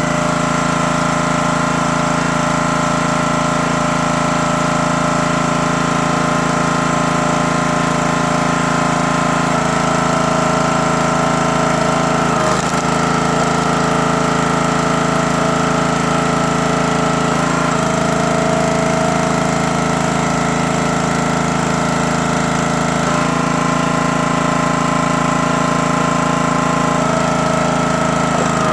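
Gas engine of a CountyLine 28-ton log splitter running steadily, its tone shifting several times as the splitter works.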